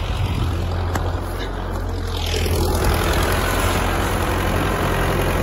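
Farm tractor's diesel engine running steadily under load as it pulls a plough through dry soil, a little louder from about three seconds in.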